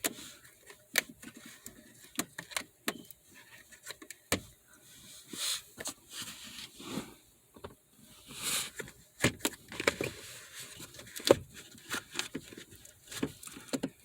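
Irregular clicks, knocks and short scrapes of hands and a tool working on a car's gear shifter and its plastic trim clip.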